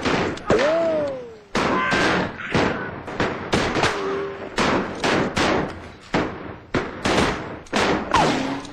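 Rifle gunfire: about fifteen sharp shots in quick, uneven succession, several rifles firing at once.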